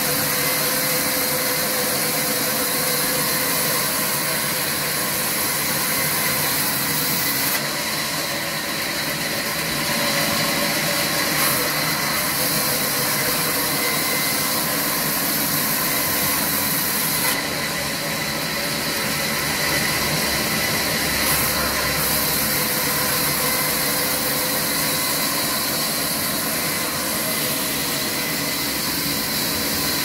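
Electric-motor-driven vertical band saw running steadily while a wooden plank is fed through the blade. It makes a continuous mechanical whine with a strong high hiss of the blade cutting timber, and the hiss shifts in strength a couple of times as the cut goes on.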